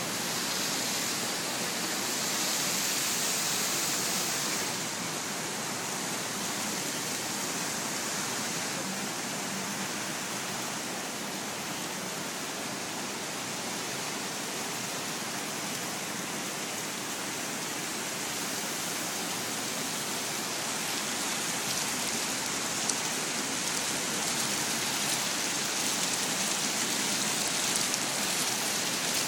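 Many bubbler fountain jets splashing up and falling back into a shallow pool, a steady even rush of water.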